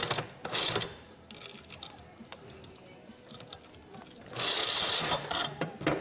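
Impact driver spinning a blade-sharpener attachment against a steel lawnmower blade, grinding in short trigger bursts: two brief bursts at the start, then a longer grinding run from about four and a half seconds in.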